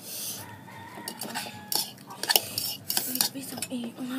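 Metal forks clinking and scraping against ceramic bowls and plates as noodles are eaten, in several separate clinks.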